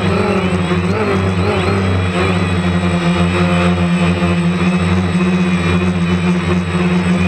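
DJI Phantom quadcopter's motors and propellers buzzing steadily, heard close up from a camera mounted on the drone. The pitch wavers a little in the first couple of seconds as it manoeuvres, then holds steady.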